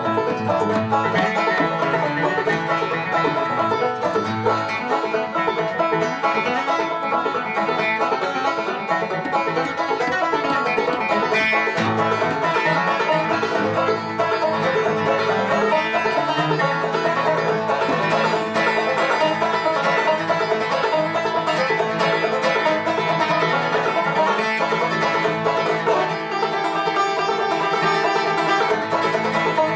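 A banjo and an acoustic guitar play an instrumental bluegrass tune together. The banjo is picked over the guitar's backing.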